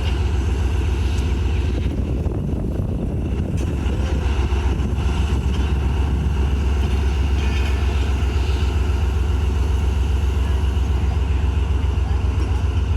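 Steady, loud low rumble of a ZCU-30 diesel-electric locomotive running, with no clear change in pitch or level.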